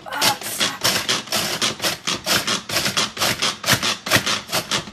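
Pampered Chef manual food processor being pumped rapidly, about four to five strokes a second: the plunger clacking up and down as the spinning blades chop whole Oreo cookies in the plastic bowl.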